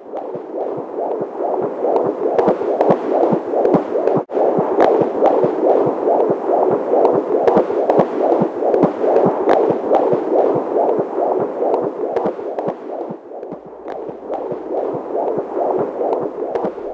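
Fetal heartbeat as heard through a Doppler ultrasound monitor: a fast, even pulse that is steady throughout, with a brief dropout about four seconds in.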